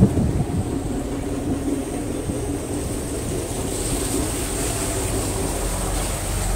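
Vaporetto (Venice water bus) engine running steadily under way, heard from on board: an even low rumble with a faint steady hum.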